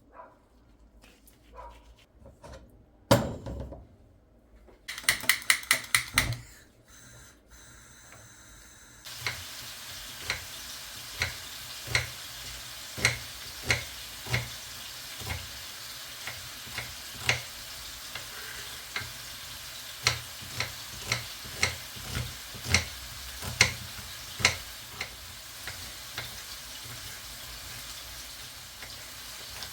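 Food sizzling in a frying pan, with a utensil tapping and scraping against the pan about once or twice a second while it is stirred. Before the sizzle begins there are a few kitchen knocks and a quick run of clicks.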